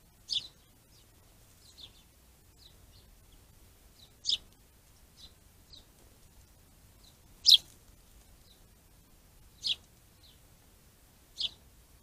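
A small songbird giving short, high, sharp calls: five loud ones a few seconds apart, with fainter chirps in between.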